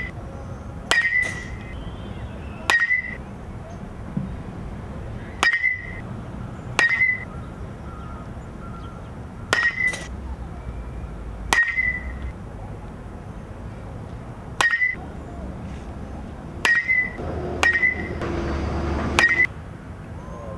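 Metal baseball bat hitting balls in batting practice: about ten sharp, ringing pings spaced one to three seconds apart. A brief rush of noise rises under the last two hits near the end.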